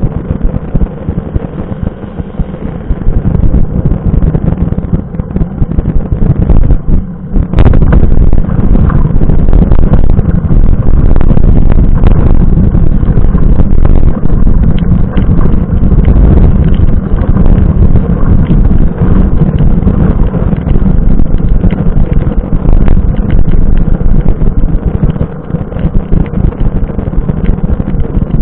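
Dense low rumble of wind buffeting and road vibration on a bike-mounted action camera as a mountain bike rolls along a wet road in the rain, with scattered knocks. It grows louder about three seconds in, dips briefly just before seven seconds, and a sharp knock comes about seven and a half seconds in.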